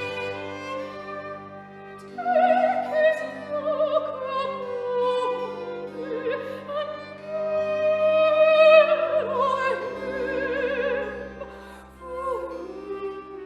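Classical music in an operatic style: a high melody with wide vibrato entering about two seconds in, over sustained low string accompaniment.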